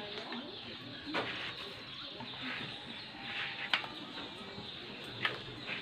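Three sharp wooden clacks, spaced a second or more apart, of rattan arnis sticks striking each other in a sinawali drill, with a dove cooing in the background.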